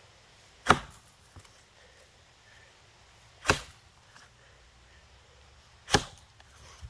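Axe chopping into a box elder log: three single strikes about two and a half seconds apart, with a faint knock after the first.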